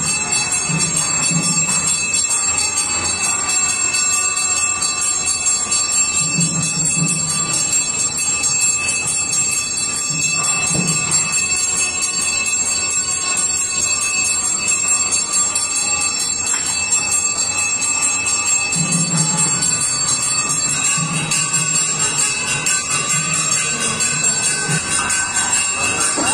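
Brass puja hand bell rung continuously in a steady ringing during the abhishekam ritual, with music underneath.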